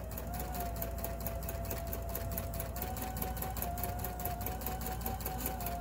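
Bernina Artista 180 sewing machine stitching a rolled hem at steady speed: a steady motor whine with rapid, evenly spaced needle clicks, the whine lifting slightly about three seconds in.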